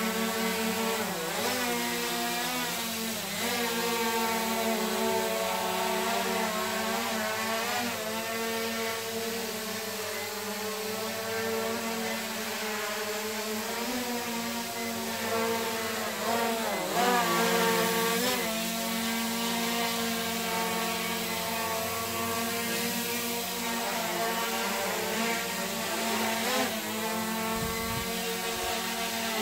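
Small quadcopter drone flying, its motors and propellers giving a steady multi-toned whine. The pitch dips and swells several times as the drone adjusts its throttle, loudest about seventeen seconds in.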